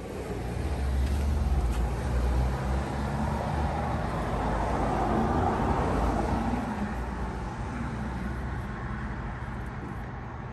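A road vehicle passing close by: engine hum and tyre noise swell about a second in and fade away over the last few seconds.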